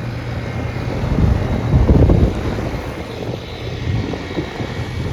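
1992 Janitrol central air conditioner's outdoor condenser unit running: a steady low hum from the compressor and fan, with a louder rush of blowing air about one to two and a half seconds in.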